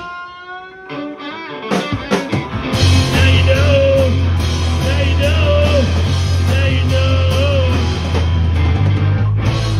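Live punk rock band playing loud: electric guitar, bass and drums, with singing. It opens on a brief break of held, ringing guitar notes, the full band crashes back in about two seconds in, and the song ends on a sudden stop.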